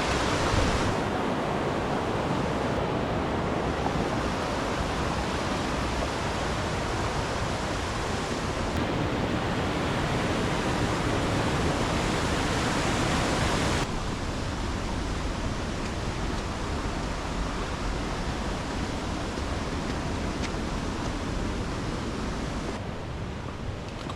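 Steady rush of falling water from a cascading mountain creek. It drops suddenly to a softer, duller rush about two-thirds of the way through.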